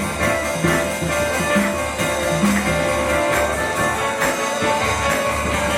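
Instrumental music with guitar, playing steadily with a regular bass beat.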